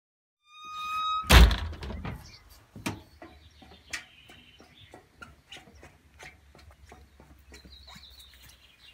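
A door banging shut with one loud thunk, just after a short high squeal, followed by scattered light clicks and knocks over a low steady rumble.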